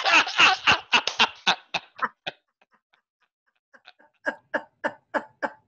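Two people laughing hard in quick rhythmic bursts that trail off about two seconds in, then after a short pause a second round of laughter at about four bursts a second.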